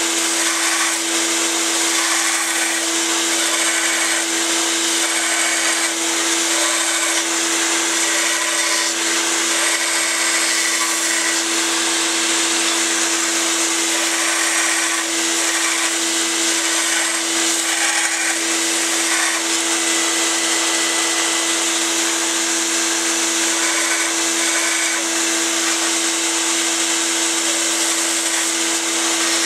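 Belt sander running steadily with a constant motor hum while a knife blank is pressed against the belt, grinding its profile with a dense hiss. A shop vacuum runs along with it.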